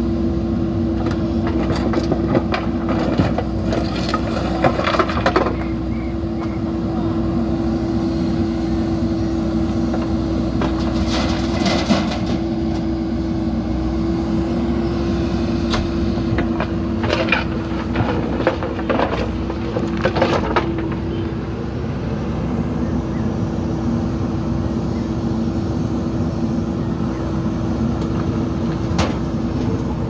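JCB 3DX backhoe loader's diesel engine running steadily as its front loader bucket works the stone pile, with several bursts of rocks clattering and scraping against the steel bucket and tipping into a tractor trolley.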